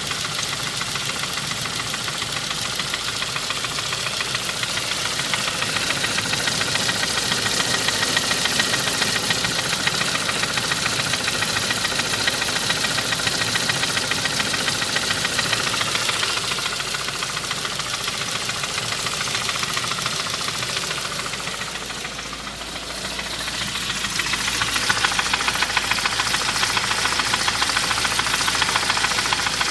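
2001 Saab 9-5 engine running with a fast, steady ticking knock that persists despite new main and rod bearings and freed lifters; the owner suspects the lifters are still clicking or the timing is off. The noise fades briefly about three quarters of the way through, then comes back.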